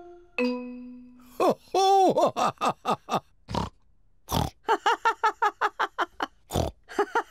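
Cartoon pig characters laughing in quick, repeated bursts broken by loud pig snorts, after a short held tone at the start.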